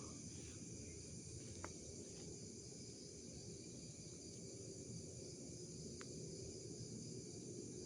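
Faint, steady chorus of crickets shrilling over a low rumble of outdoor background noise, with a couple of faint ticks.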